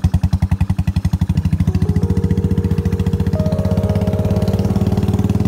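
Motorcycle engine running as the bike rides along, heard from the pillion seat: an even, quick exhaust beat that speeds up and smooths into a steady drone over the first couple of seconds.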